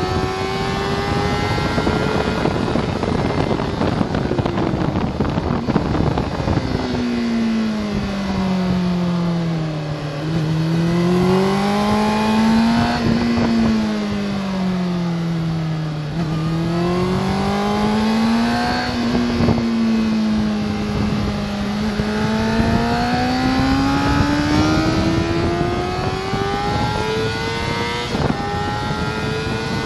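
Onboard sound of a Honda sport bike's engine at speed on a track, with heavy wind rush on the microphone. The engine note drops as the bike brakes into a slow section, rises and falls twice through the bends, then climbs steadily as the bike accelerates hard out of the last corner.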